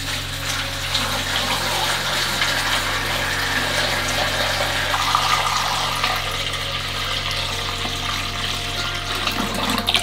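Water poured steadily from a container into a glass aquarium tank, splashing onto rockwork and the glass bottom; a steady rushing pour that starts suddenly.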